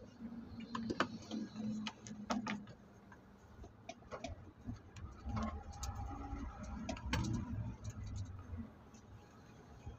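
Low rumble of a vehicle on the road, heard from inside its cabin, with irregular clicks and ticks scattered through it.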